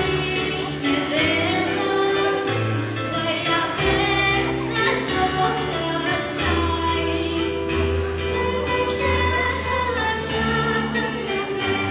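A girl singing solo into a microphone over an instrumental accompaniment, whose held bass notes change every second or two.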